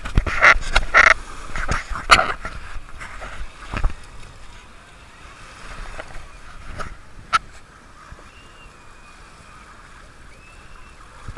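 Feet wading and splashing through shallow sea water, loud and irregular for the first few seconds, then settling into a steady wash of small waves and beach noise with a few scattered clicks.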